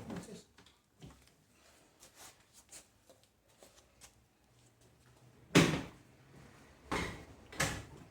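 Handling of tools and washing-machine parts during reassembly: scattered small clicks and rattles, then three sharp knocks over the last few seconds, the first the loudest.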